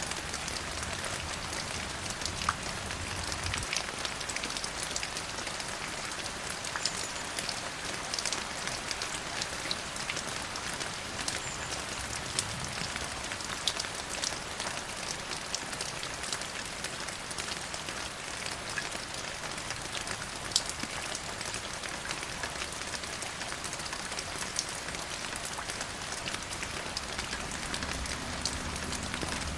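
Steady rain falling, an even hiss with scattered sharper drop taps on hard surfaces.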